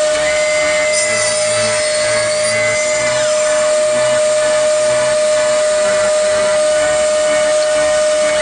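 Mini electric table saw running with a steady whine.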